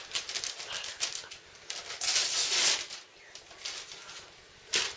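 Wrapping paper crackling and tearing as a present is unwrapped, in a run of short rustles with a longer rip about two seconds in and a sharp crackle near the end.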